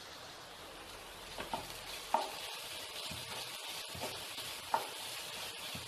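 Chopped onions sizzling in oil in a nonstick frying pan as a wooden spatula stirs turmeric powder into them, the spatula knocking and scraping against the pan about six times.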